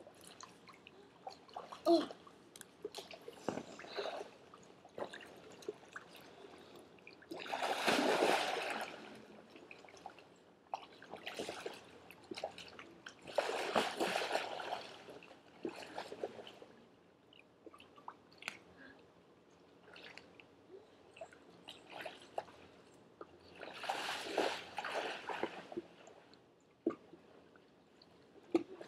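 Water splashing and sloshing, with three louder splashes spread through and small drips and knocks between them.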